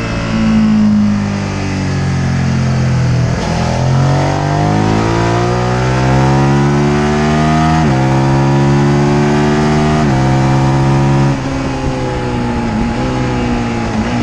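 Sports motorcycle engine at track speed: its pitch falls as it slows through a corner, then climbs hard through the gears with two quick upshifts in the middle, before the throttle closes and the pitch drops back near the end. Wind rush under the engine throughout.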